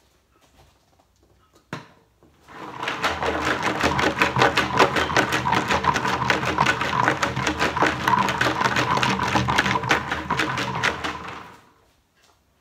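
A large plastic water jug shaken hard with folded paper entry slips tumbling and rattling inside it for about nine seconds, mixing the entries for a draw. A single knock comes just before the shaking starts.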